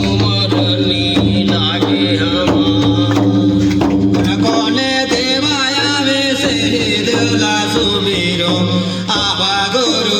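Music of a Chhattisgarhi devotional jas geet: held notes over a steady drum beat, between sung lines.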